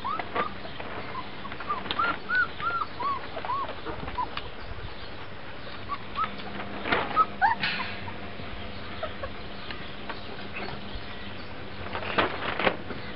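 Three-week-old puppies squeaking and whimpering as they nurse: a run of short high squeaks in the first few seconds and more around the middle, with shuffling and scuffling as the litter scrambles near the end.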